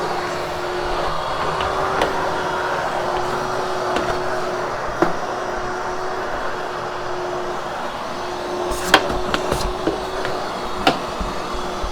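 Vacuum cleaner running steadily, a constant hum with a held motor tone, as it post-vacuums loosened cat hair from a freshly cleaned carpet. A few sharp knocks come near the end.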